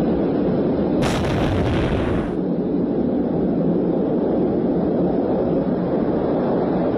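An explosion about a second in: a sudden blast lasting about a second and a half that cuts off abruptly, over a steady low rumble.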